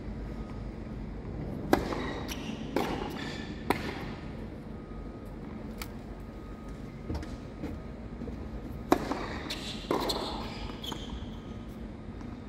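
Tennis balls struck by racquets and bouncing on a hard court: a few sharp cracks, three early on and two more near the end, each followed by echo that rings round an empty stadium.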